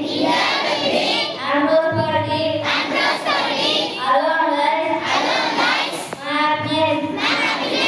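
A child singing into a microphone, with long held notes and other children's voices joining in.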